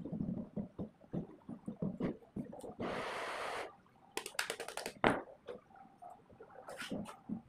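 Hands lacing binding tape around the copper end windings of an electric motor stator during a rewind. The sound is rustling with many small clicks and taps, and a rasping noise a little under a second long about three seconds in.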